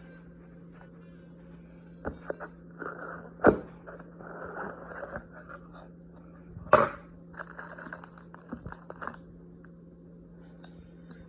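Handling noises: a run of small clicks and rustles with two sharp knocks, over a steady low hum.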